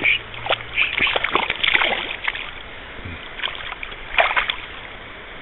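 Trout thrashing on the line at the water's surface, throwing quick bursts of splashes in two bouts, the second a little after four seconds in, over the steady wash of river current.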